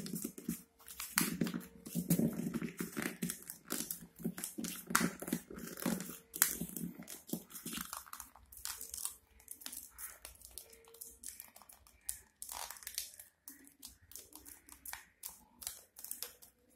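Crumpled paper crinkling as hands press and fold it around a ball, a dense run of irregular crackles that thins out about halfway through.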